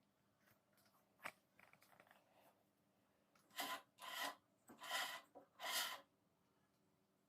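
A single click, then four short rubbing strokes of about half a second each, from handwork on a workbench tool.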